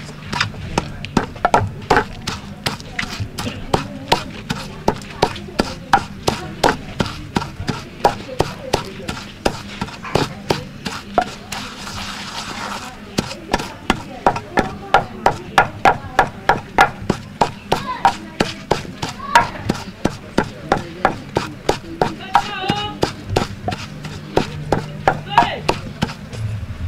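Wooden pestle pounding dry ingredients in a wooden mortar: steady, regular thuds about two to three a second, crushing them to a coarse powder.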